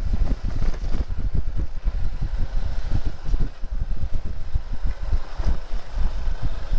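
Motorcycle engine running as the bike rides slowly along a dirt track, heard as an uneven low rumble that rises and falls.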